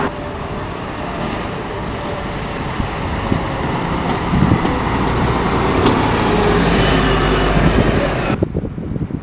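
Street traffic with a heavy road vehicle's engine running. It builds to a strong low rumble as it draws near.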